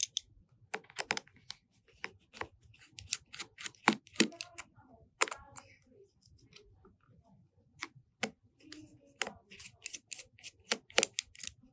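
Small metal repair tools clicking and tapping on an iPhone's internal parts while a Y-tip screwdriver takes out the screws holding the loudspeaker bracket. The clicks come irregularly, in clusters, with a few louder taps about four seconds in.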